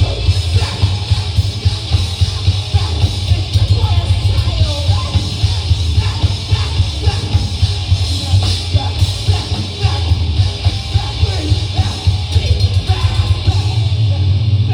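Live rock band playing loud, with heavy bass, a steady pounding drum beat and shouted singing.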